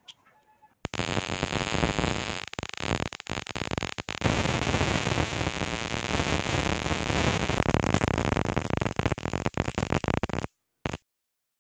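High-voltage arc from a flyback transformer crackling and hissing across a small gap between two alligator-clip leads, with many sharp breaks. It starts about a second in, cuts off about a second before the end, and one short burst follows.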